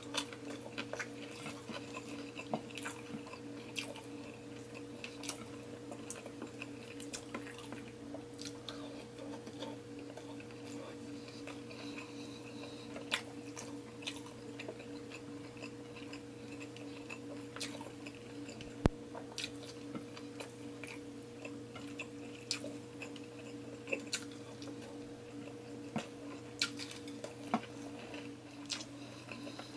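Close-miked chewing and mouth sounds of a person eating rice by hand, with scattered small sharp clicks and smacks. A steady low hum runs underneath.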